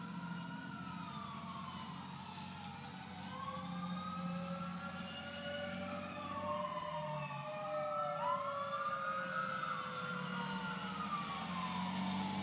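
Several fire engine sirens wailing at once, their pitches rising and falling out of step with one another, over the low hum of truck engines; the sirens grow louder about two-thirds of the way through. They are sounded as a funeral salute to a fallen firefighter.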